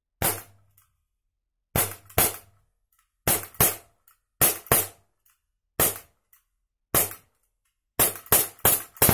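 ISSC M22 4.5 mm CO2 blowback BB pistol firing about a dozen single shots, each a sharp crack with the slide snapping back, at uneven spacing and coming faster near the end. Fainter ticks are heard between some of the shots.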